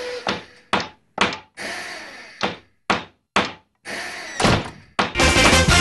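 A series of about ten loud, hollow knocking thuds, unevenly spaced about half a second apart, each ringing briefly. Strummed guitar music comes in about five seconds in.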